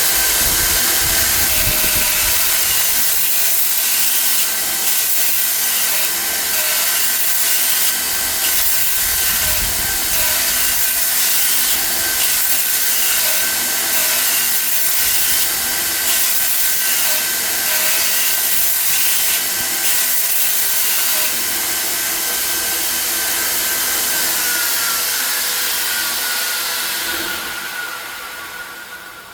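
Surface grinder running, a steady high hiss with a held whine and a faint regular pulse about once a second. Near the end the whine drops in pitch and the sound dies away.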